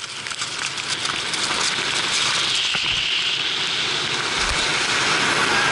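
Rushing wind on a skier-mounted GoPro and jumping skis sliding fast down a ski-jump inrun: an even rush that swells over the first two seconds as speed builds, then holds steady.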